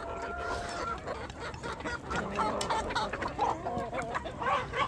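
A flock of chickens clucking as they feed on scraps: many short, overlapping calls, getting busier in the second half.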